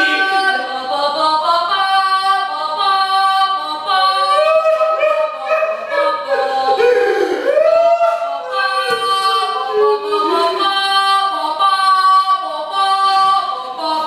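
A single high voice singing without accompaniment, holding long notes, with a sliding swoop down and back up about halfway through.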